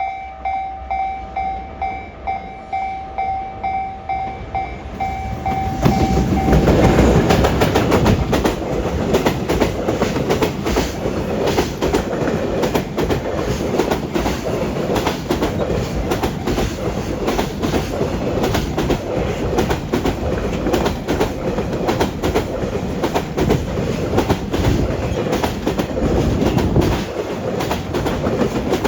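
Level crossing warning bell dinging in a quick repeating pattern, about two or three times a second. About six seconds in, a DD200 diesel-electric freight locomotive passes hauling new Tobu 90000 series electric cars, and their wheels clatter steadily over the rail joints.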